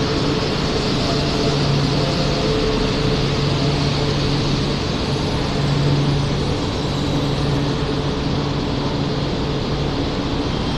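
E4 series MAX double-decker Shinkansen at the platform, a steady low hum over an even rushing noise as the train draws to a stand with its doors still shut.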